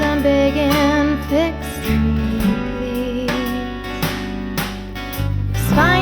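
Music: a song with strummed acoustic guitar under a gliding melody line, most likely a singing voice.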